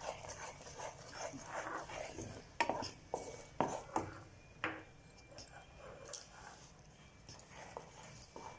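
A utensil scraping and tapping in a pan of hot jaggery syrup as it is stirred on the stove, with several short sharp knocks in the middle.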